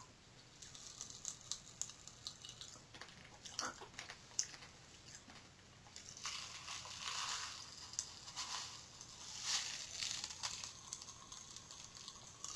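Pop Rocks candy packet crinkling as it is handled and tipped up to the mouth. There are scattered small clicks and crackles at first, then two longer rustles about six and nine and a half seconds in.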